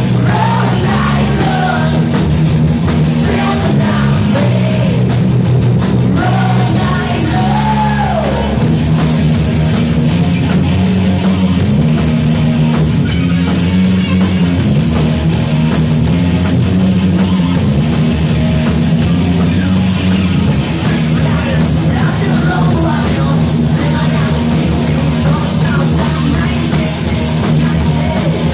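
Rock band playing loud distorted guitar rock, with sung vocals in the first part.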